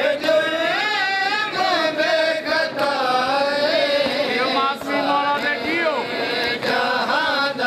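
A loud chanted nauha lament, a voice holding long wavering, ornamented lines, with the mourners' chest-beating (matam) striking in time with it.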